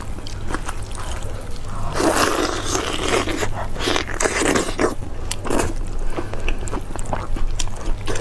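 Close-miked eating: meat on the bone torn apart by hand, then bitten and chewed, in a run of wet clicks and crackles that is densest from about two to five seconds in.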